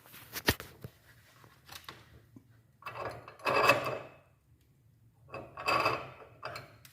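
Metal-on-metal scraping of a cast-iron wood stove's air-draft regulator being slid open and shut. There is a sharp click about half a second in, then two longer scrapes, the first louder.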